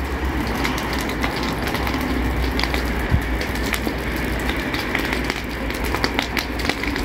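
Dry brush fire burning, with frequent sharp crackles and pops over a steady rushing noise and a heavy low rumble.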